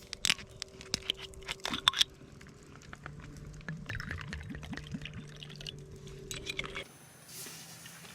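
Liquid sounds with clinks and knocks of tableware; the sharpest clicks come in the first two seconds. A steady low hum runs underneath and cuts off abruptly near the end.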